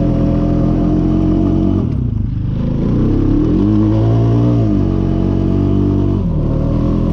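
Four-wheeler (ATV) engine running, dipping about two seconds in, then revved up and back down between about three and five seconds in.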